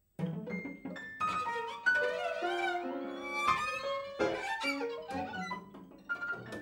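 Violin, cello and piano trio playing a contemporary classical piece. The music enters suddenly from silence with a sharp attack, then dense overlapping bowed notes with wavering, sliding pitches, broken by several sharp piano and string accents.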